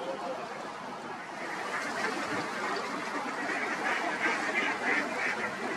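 Waterfowl calling, a run of repeated calls from about two seconds in.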